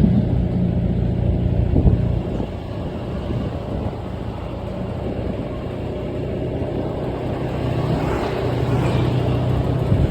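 A motor vehicle engine running steadily, with one short knock about two seconds in.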